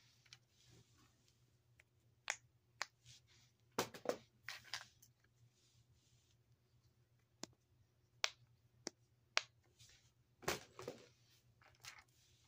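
Small silicone and plastic fidget toys being handled and sorted: about a dozen irregular sharp clicks and taps with soft rustling between them.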